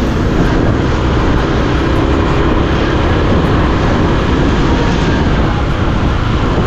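Motorcycle on the move: a steady rush of wind over the microphone with the motorcycle's engine running underneath.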